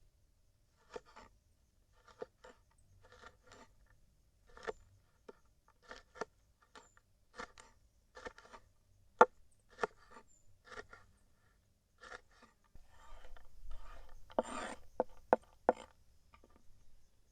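Food preparation by hand: irregular sharp knocks and clicks, about one a second, each with a short woody ring. A quicker cluster of knocks comes near the end over a low rumble.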